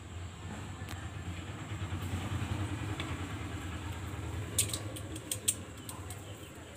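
A steady low hum, with a few light clicks and taps near the middle as raw fish pieces are handled and set into a steel bowl.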